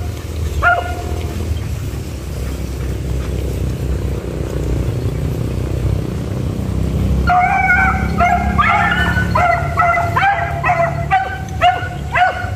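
Hunting beagle giving tongue in high yelps: a single yelp near the start, then a rapid run of yelps, about two to three a second, from a little past halfway to the end. A steady low rumble runs underneath.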